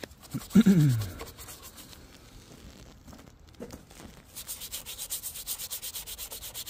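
Bristle detailing brush scrubbing the textured plastic of a 1996 Chevy S10's removed dash, in quick, even strokes of about six a second, starting about four seconds in. About half a second in comes a short, loud sound that falls in pitch, the loudest thing here.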